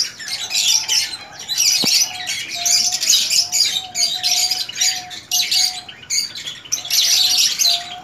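Many small cage birds chirping busily and continuously in an aviary, with a faint low note coming and going underneath and a single click about two seconds in.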